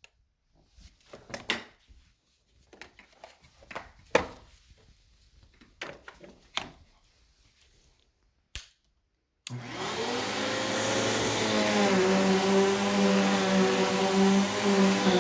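Scattered clicks and knocks, then about nine and a half seconds in the Riccar R20P upright vacuum's suction motor starts abruptly and runs steadily with a hum and whine.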